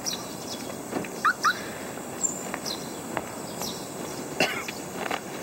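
Outdoor ambience: a steady hiss with scattered light clicks and taps, and two quick rising bird chirps about a second in.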